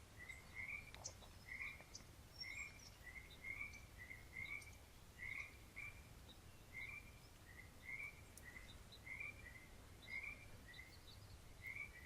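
Faint frog calls: short croaking chirps repeating about one and a half times a second.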